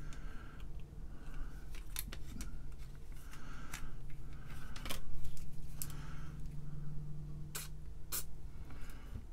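Small sharp plastic clicks as calculator key switches are handled and fitted onto the keyboard circuit board: about half a dozen separate clicks, spread unevenly, over a low steady hum.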